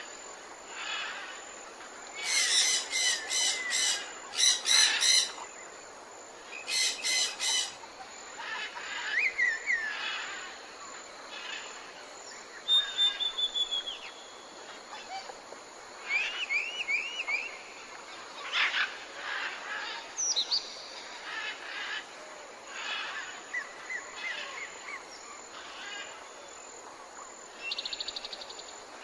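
Several songbirds calling and singing, with rapid trilled calls loudest a few seconds in and again about seven seconds in, then scattered chirps, short rising notes and a quick falling run of notes. A faint steady hiss lies underneath.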